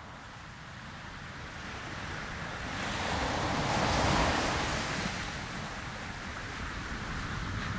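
A rushing noise without pitch that swells to its loudest about four seconds in, then eases off, like surf or wind.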